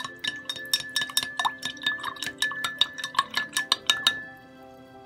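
A spoon clinking rapidly against the side of a glass measuring jar while stirring oil into coloured water, several ringing taps a second, stopping about four seconds in. Soft background music runs underneath.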